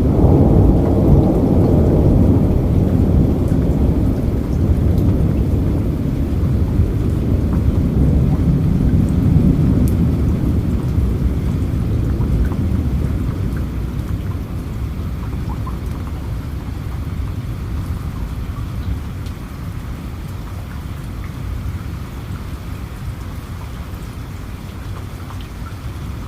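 Rain falling steadily, with a long low rumble of thunder that is loudest at the start and slowly dies away.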